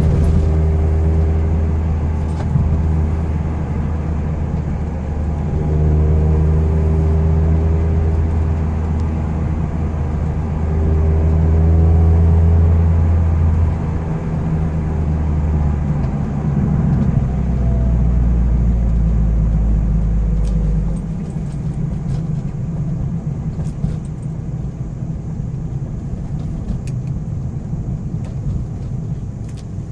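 Mazda Miata NC four-cylinder engine running at changing rpm, holding steady speeds with steps in pitch, then settling lower and quieter about 21 seconds in.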